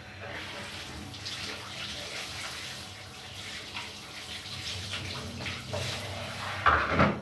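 Handheld shower head spraying water onto a dog's wet coat and a tiled shower floor, a steady hiss of running water. A short, louder sound breaks in near the end.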